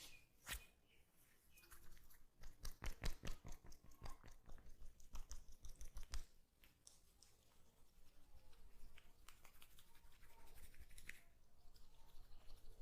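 Hands massaging a head close to the microphone: crackly rubbing of fingers through hair, with a quick run of about five light strokes or taps a second in the first half, then softer continuous rubbing.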